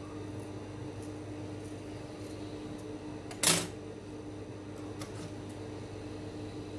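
One sharp snip of scissors about three and a half seconds in, over a steady low hum, with a few faint handling ticks.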